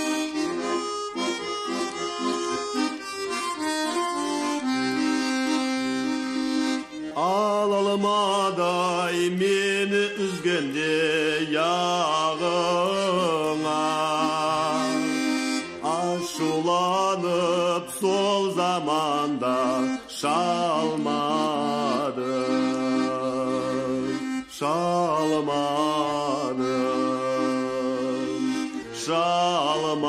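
A song with accordion accompaniment. The accordion plays alone for about the first seven seconds, then a singer comes in with heavy vibrato, singing in phrases with short breaks between them.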